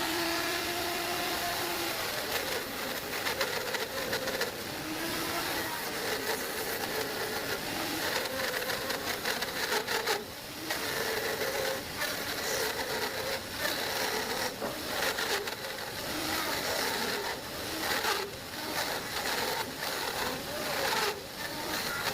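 Electric power tool running under load as it cuts a groove in wood, its motor pitch wavering as the cut goes on. The noise briefly drops about ten seconds in and again near eighteen seconds.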